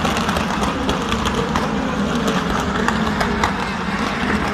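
DTM race cars' 4.0-litre V8 engines running past on a wet circuit, a steady engine drone under a constant hiss.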